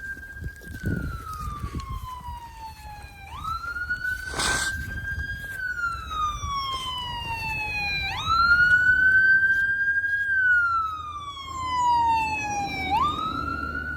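Emergency vehicle siren wailing: each cycle rises quickly, holds briefly and then falls slowly, repeating about every five seconds, about three times. A brief rush of noise about four and a half seconds in.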